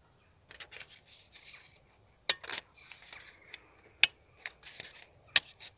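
Thin metal sheets of a Stormin cone stove windshield being handled and slotted together: light scraping and rubbing of the metal, with a few sharp clicks, the loudest about four seconds in.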